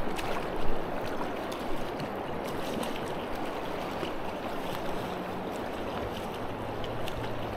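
Steady rushing of a stream's current, with a few faint clicks.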